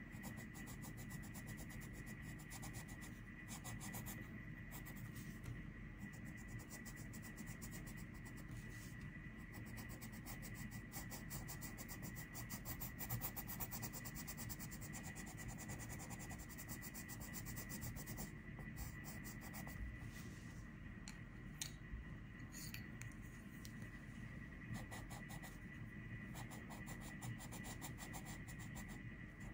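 Coloured pencil shading on paper: quick, repeated scratchy strokes of the pencil lead rubbing across the page, with a faint steady tone underneath.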